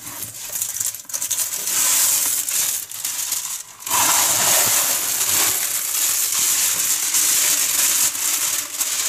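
Clear plastic film covering a large diamond painting canvas crinkling as hands smooth and lift it: a loud, continuous crackly rustle, with a brief pause a little under four seconds in.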